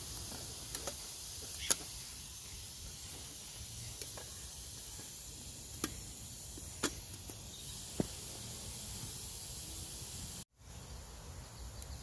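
Small campfire of damp split sticks crackling, with several sharp pops scattered over a steady background hiss. The sound drops out completely for a moment about ten and a half seconds in.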